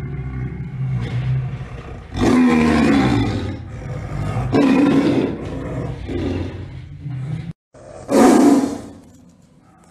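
A tiger growling low and steadily, breaking into loud rough roars about two seconds in and twice more soon after. After a short break, there is another loud roar near the end.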